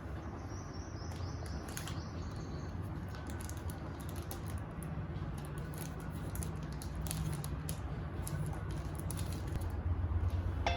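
Light, scattered clicks and taps of small miniature kitchen pieces and packaging being handled, over a low steady hum.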